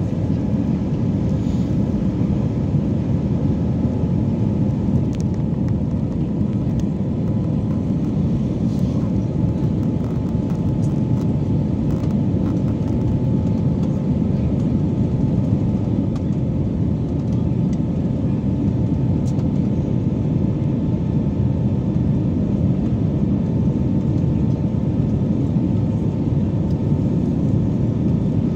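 Steady engine and airflow noise inside the cabin of an Airbus A320-family airliner climbing after takeoff, mostly low in pitch, with a faint steady whine above it.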